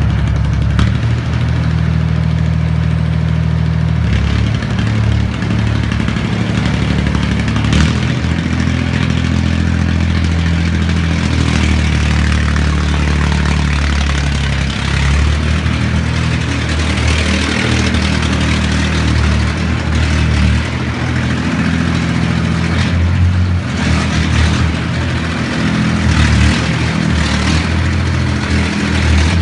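YBM-3000 solar pile driver at work: its engine runs steadily under a dense, rapid clatter from the driving head.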